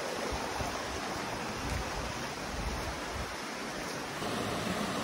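Rocky mountain stream running, a steady sound of water flowing over rocks.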